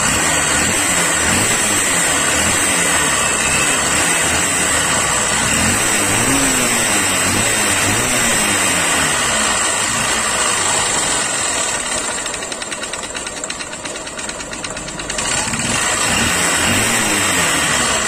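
Honda CB Shine's 125 cc single-cylinder four-stroke engine running and being revved again and again, with a knock that grows louder on the throttle and is milder at idle; the mechanic identifies it as connecting-rod noise. About two-thirds of the way through the revs drop back to idle for a few seconds, then rise again.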